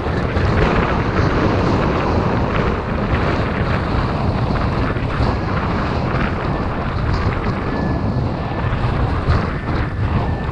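Steady wind buffeting the microphone of a camera mounted on a windsurf board sailing across choppy sea, mixed with water rushing and slapping against the board.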